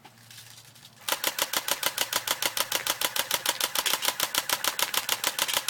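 Electric airsoft gun firing on full auto, a rapid even stream of shots at about a dozen a second, starting about a second in. It fires now after failing to shoot moments earlier.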